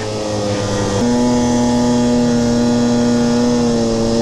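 Snowmobile engine running at steady high revs while climbing a snowy slope, its pitch stepping up slightly about a second in and then holding.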